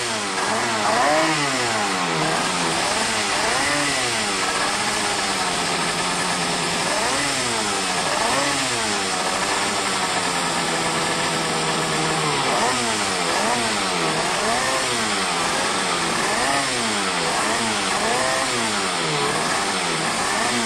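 Racing powerboat's outboard engine running with its throttle blipped, the revs rising and falling over and over about once a second, with a steadier stretch in the middle.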